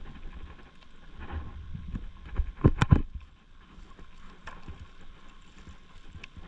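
Water sloshing and splashing, with two loud splashes or knocks close together about three seconds in.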